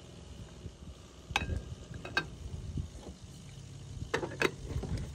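Metal clinks of a spoon and a stovetop moka pot's metal parts as ground coffee is spooned into the pot and its top chamber is fitted on: two sharp clinks a little over a second and two seconds in, then two more about four seconds in.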